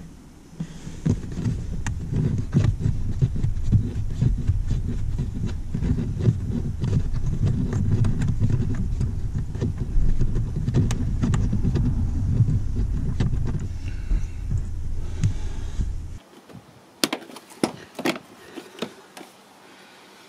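Low rumbling on the microphone with many small clicks and knocks as a hand works at plastic trim and wiring under a car's dashboard. The rumble cuts off suddenly about sixteen seconds in, and a few sharp clicks follow.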